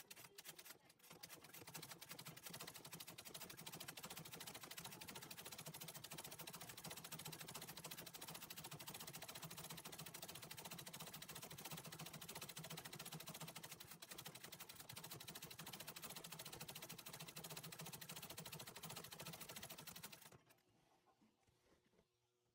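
Antique treadle sewing machine stitching fast and continuously, its needle running up and down through the hoop-stretched fabric in free-motion embroidery. The machine stops near the end.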